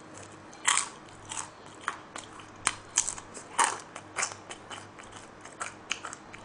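Close-miked crunching and chewing of crispy glutinous-rice sweet-and-sour pork (chapssal tangsuyuk): about a dozen sharp, irregular crunches, roughly two a second.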